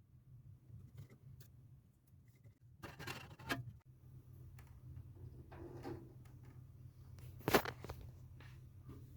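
Handling noises of small hard parts: scattered light clicks, a short scraping rustle about three seconds in, and a sharp knock about seven and a half seconds in, over a steady low hum.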